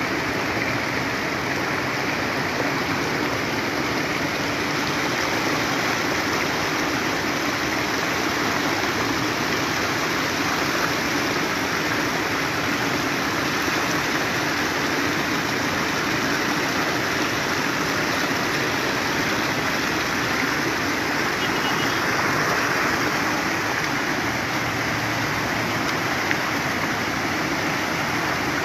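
Floodwater running fast across a flooded street: a steady rush of flowing water.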